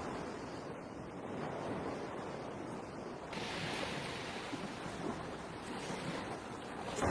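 Steady heavy rain, an even hiss that grows brighter about three seconds in.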